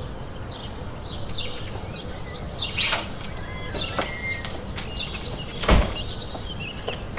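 Small birds chirping repeatedly over a steady outdoor background noise, with one sharp click or knock about two-thirds of the way through.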